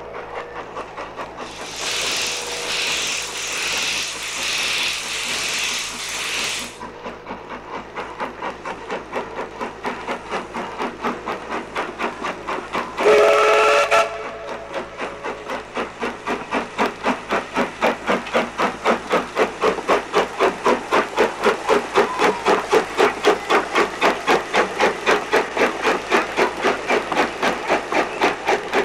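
Queensland Railways PB15-class 4-6-0 steam locomotive working a train. Steam hisses for about five seconds near the start, the whistle gives one short blast about halfway through, and the exhaust beats quicken and grow louder toward the end.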